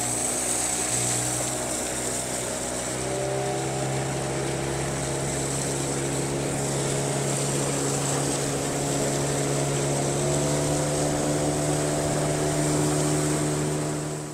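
Boat motor running steadily, its pitch rising a little a few seconds in, then cut off suddenly at the end.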